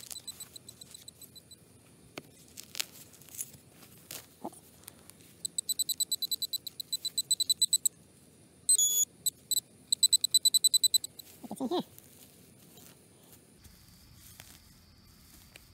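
Handheld metal-detecting pinpointer beeping in two runs of rapid high beeps, about six a second, with a short pause between. The fast beeping signals a metal target close to the probe tip in the dug soil.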